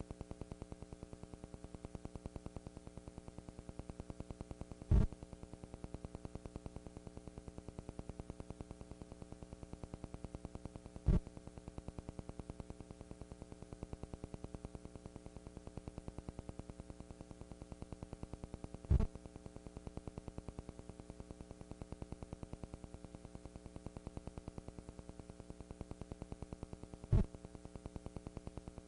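A steady electrical hum and buzz with static hiss on the recording. Four sharp pops break through it, spaced several seconds apart.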